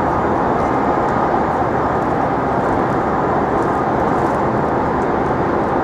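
Steady, loud city-street noise with no distinct events, its energy mostly low.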